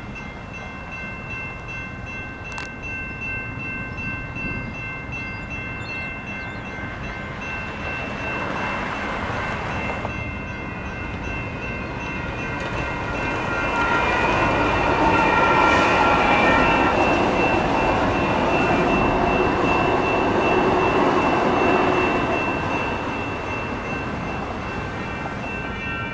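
Railroad crossing warning bells ringing steadily as a SACRT light rail train passes through the crossing. The train's running noise builds past the halfway point, stays loudest for several seconds, then fades while the bells keep ringing.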